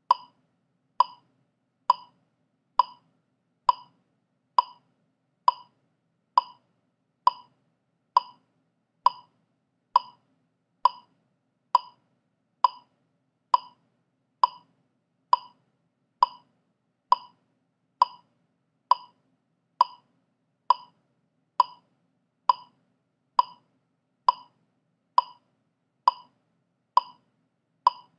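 Metronome click track ticking steadily at 67 beats per minute: a short, sharp click a little under once a second, every beat alike with no accented downbeat.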